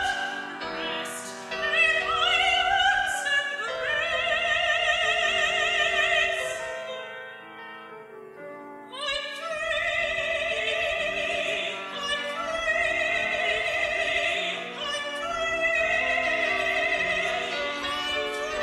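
Classical soprano singing long held notes with wide vibrato over piano accompaniment, from an old cassette recording with a slightly wobbly, uneven sound. The voice drops away briefly about eight seconds in, then comes back.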